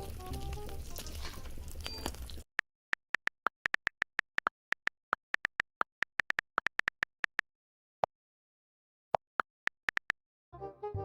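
Food sizzling under quiet background music. After about two and a half seconds it cuts to silence broken by a quick, uneven run of short, high electronic beeps, and keyboard music starts near the end.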